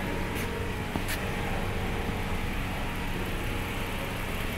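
Steady low mechanical hum of a running machine, with two faint light ticks about half a second and a second in.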